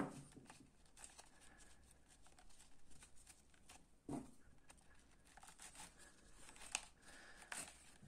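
Nylon webbing being threaded and pulled through a short PVC pipe handle by hand: faint rustling and scraping with scattered small clicks, and a soft knock at the start and another about four seconds in.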